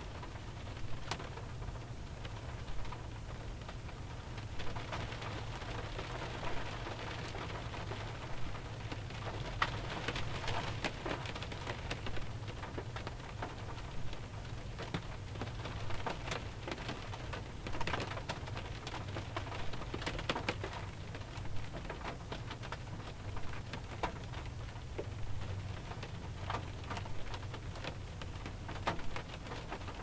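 Light rain falling on a 2001 Pontiac Grand Prix, heard from inside the car: a steady patter with many scattered sharper drop impacts, over a steady low hum.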